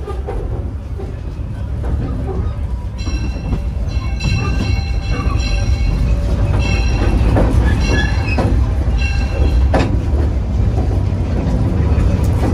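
Coal-fired steam train running, a steady low rumble heard from aboard the train. From about three seconds in, a high metallic ringing comes and goes about every second and a quarter, five or six times. A sharp knock follows near the end.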